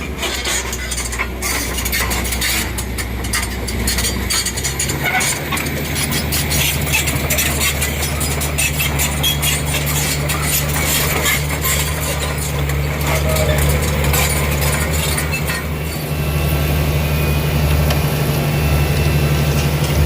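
Heavy diesel engine of construction machinery, most likely the Komatsu 400 excavator, running steadily, with its note stepping up about four to five seconds in. Many metallic clicks and clanks sound over it through the first half.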